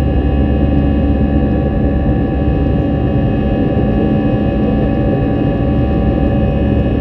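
Airbus airliner's jet engines and airflow heard from inside the passenger cabin in flight: a steady low rumble with several even whining tones above it.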